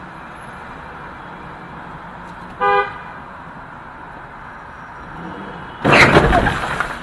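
Steady road noise inside a moving car; a brief car horn toot about a third of the way in. Near the end, a loud sudden crash of a car collision that dies away over about a second.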